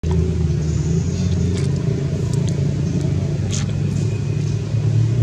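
Steady low rumble, with a few faint short high chirps or squeaks over it.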